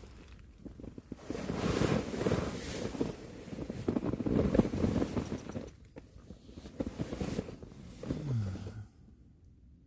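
Strong wind gusts buffeting and shaking a Hilleberg Allak 2 tent in a storm, in irregular surges. The noise cuts off suddenly near the end.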